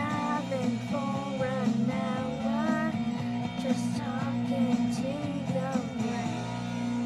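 Pop-rock music with guitar and a sung vocal line that bends up and down, giving way to a held chord about six seconds in.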